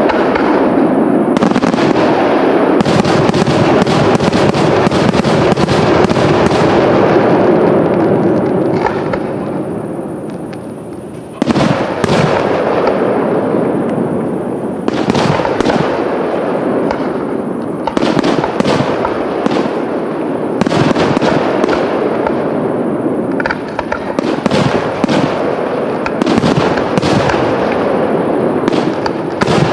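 Aerial fireworks shells bursting in dense, overlapping bangs and crackle. The barrage tapers off about ten seconds in, then a new sequence starts abruptly with repeated sharp bangs that carry on to the end.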